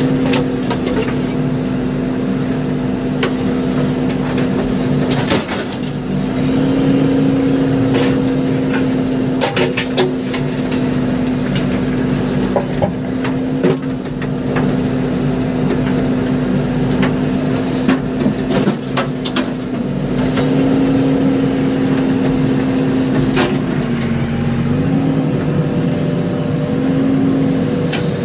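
JCB backhoe loader's diesel engine running steadily, heard from inside the cab; its note lifts a little and dips briefly near the end as the hydraulics take load. Scattered clanks and knocks from the bucket and arm working the stone pile.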